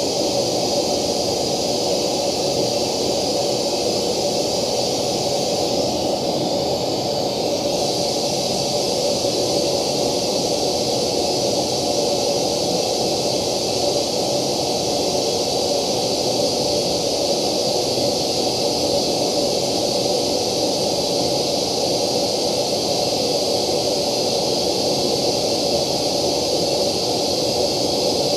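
Steady hiss-like test noise played through a loudspeaker with a JBL ring-radiator tweeter, heard first with the tweeter's acrylic acoustic lens (slant-plate) assembly in front of it and then with the tweeter bare. The top treble dips briefly about six seconds in.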